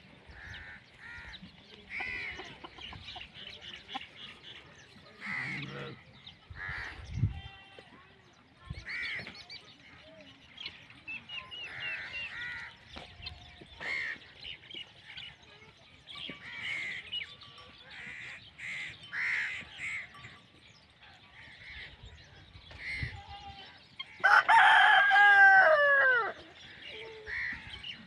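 Chickens clucking and calling in short bursts, with a rooster crowing loudly once near the end, its call falling in pitch at the close.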